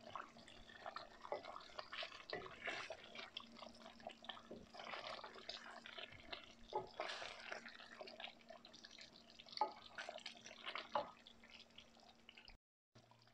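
Thick curry gravy bubbling and spitting in a steel karahi, a continuous patter of small pops with a few sharper clicks as a wooden spoon stirs and knocks against the pan. The masala is cooked down to the stage where the oil separates from the gravy.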